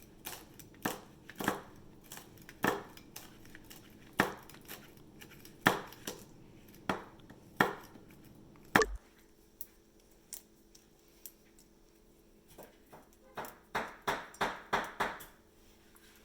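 Kitchen knife chopping onion on a cutting board: slow, uneven single cuts about once a second, with a quicker run of cuts near the end.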